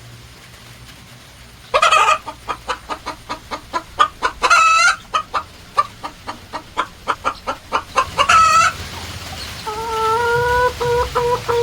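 Chicken cackling: a loud squawk, then a quick run of clucks broken by two drawn-out calls. Near the end a steady tone starts, pulsing two or three times a second.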